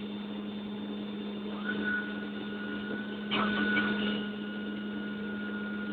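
Steady hum of an aircraft cabin, with a high whine that rises about one and a half seconds in and then holds steady. A brief clatter a little after three seconds is the loudest moment.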